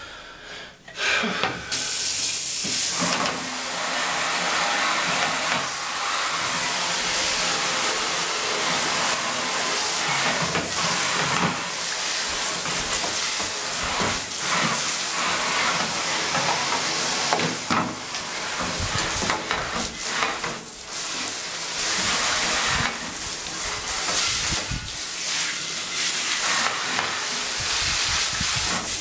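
Steady hiss of hot water spraying onto the soapy plastic cassette-recorder housing parts to rinse them, starting about a second and a half in.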